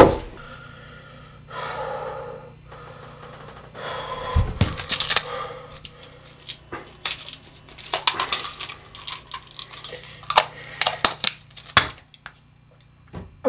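A run of irregular clicks, knocks and rustles, denser in the second half, over a steady low hum.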